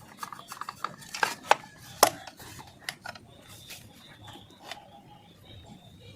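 Scattered light clicks and metallic clinks, sharpest about a second and a half and two seconds in, as of small metal parts or tools being handled during a repair.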